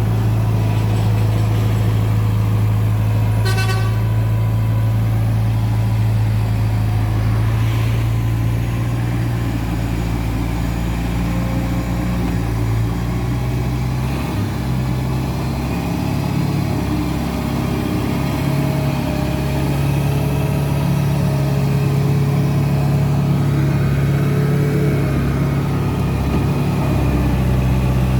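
Diesel engine of a loader running steadily, its pitch shifting a few times. A brief horn toot comes about three and a half seconds in.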